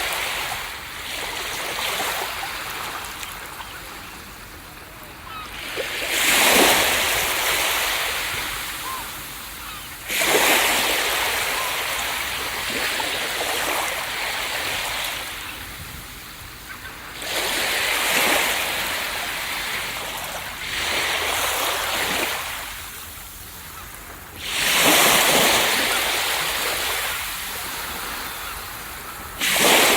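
Ocean waves breaking on a beach one after another, each one rising to a loud crash and then washing out, about every four to eight seconds.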